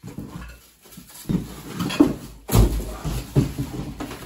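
Plastic wrapping rustling and crackling as a crib panel is dragged out of its cardboard box, with a dull knock of the panel against the box about two and a half seconds in.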